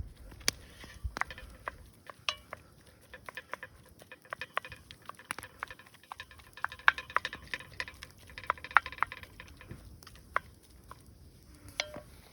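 A utensil stirring and scraping in a cast iron pan, with scattered clicks and taps, busiest in the middle stretch.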